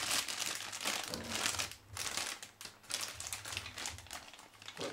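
Clear plastic bag crinkling irregularly as it is handled and opened to unwrap a projection-TV replacement lamp in its housing, with brief lulls about two seconds in.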